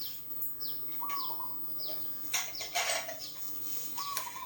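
A bird calling over and over, a short falling chirp about twice a second, with a lower two-note call from another bird twice. About two seconds in come a couple of louder rustling scrapes, from the plastic side panel being handled.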